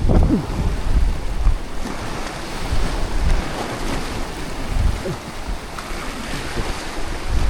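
Wind gusting on the microphone in irregular low rumbles over the steady wash of sea waves.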